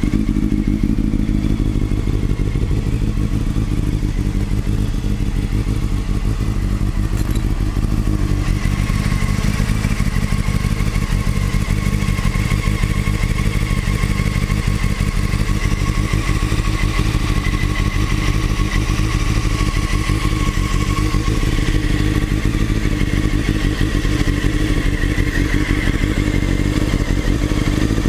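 Honda 600 inline-four motorcycle engine running steadily at idle, with an odd mechanical noise the owner suspects may come from the cam chain tensioner. More high-pitched noise joins the engine sound about eight seconds in.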